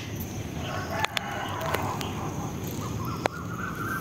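A rooster crowing: a long call held on one pitch that starts about three seconds in, after a fainter, lower call. A few sharp clicks are scattered through.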